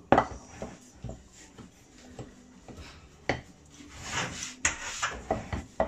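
A spoon stirring and scraping thick cake batter in a glass mixing bowl, with a few sharp knocks and clinks of spoon and bowl, the loudest right at the start.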